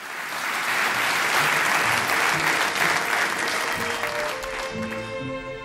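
Studio audience applauding, the clapping dying away about four seconds in as slow music starts: a held high tone over low piano notes.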